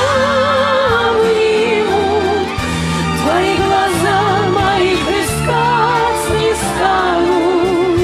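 A woman singing the chorus of a Russian-language pop ballad with strong vibrato, over a full instrumental backing.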